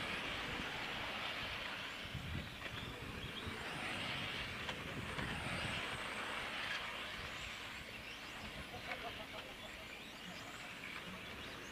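Electric 1/8-scale on-road RC cars racing on an asphalt track: a hissing whoosh of tyres and motors that swells and fades in waves as the pack passes.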